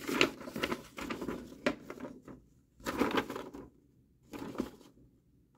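Paper instruction sheet rustling as it is handled, in about four short bursts with quiet gaps between them.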